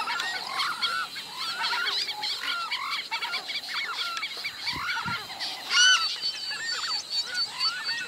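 A chorus of many birds calling over one another in short rising-and-falling notes, with one louder call about six seconds in.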